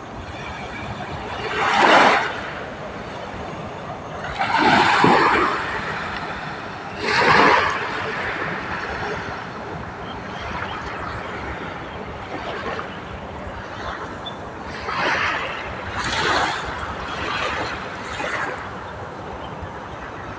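Small waves washing onto the shore, about seven surges of surf that swell and fade over a second or so each, the loudest three in the first half. A steady low rumble runs underneath.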